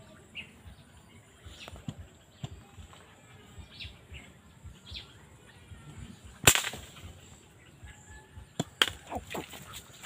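A few faint short bird chirps amid bamboo, then one loud sharp crack about six and a half seconds in and several smaller knocks and rustles near the end, from a long pole being jabbed up through the bamboo branches.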